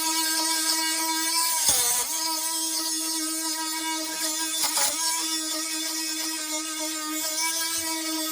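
Oscillating multi-tool with a cutter blade running with a steady high whine, its pitch dipping briefly twice, about two and five seconds in.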